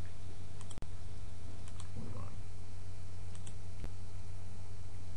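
A handful of scattered computer keyboard and mouse clicks, as the presentation slide is advanced, over a steady low electrical hum. The sound drops out for an instant about a second in.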